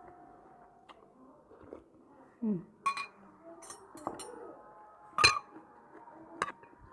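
Metal cutlery clinking against plates and a stainless-steel bowl while eating: a handful of sharp separate clinks, the loudest about five seconds in.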